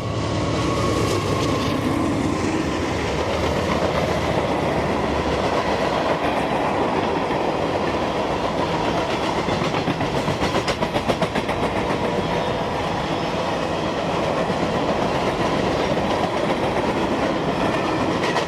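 CSX freight train rolling past at track speed: a steady rumble of the cars with rapid, regular clickety-clack of the wheels over the rail, thickest around the middle.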